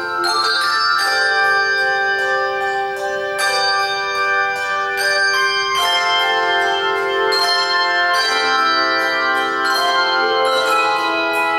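Handbell choir playing a tune from an Irish medley: handbells struck in notes and chords every second or two, their tones ringing on and overlapping.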